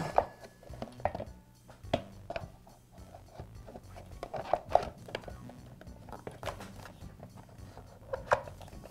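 Irregular clicks and knocks of a Porter Cable air compressor's motor-and-pump assembly and hard plastic housing as the assembly is worked back into place by hand, over soft background music.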